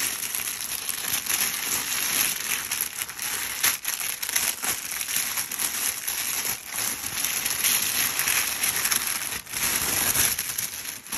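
Product wrapping being torn open and crumpled by hand: continuous crinkling and crackling with a few sharper rips.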